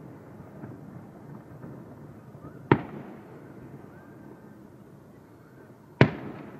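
Aerial firework shells bursting: two sharp bangs about three seconds apart, each trailing off in an echo, over a low steady background noise.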